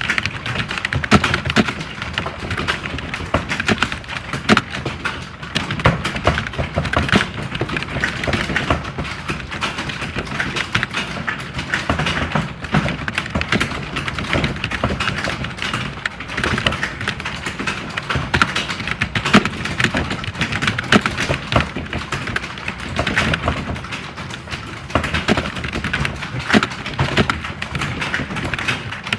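Fast typing on computer keyboards: a dense, unbroken clatter of keystrokes.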